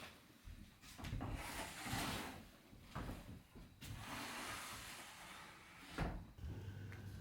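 Handling noises in a small space: two spells of rustling with sharp clicks and knocks in between, like a lid or drawer being opened and shut.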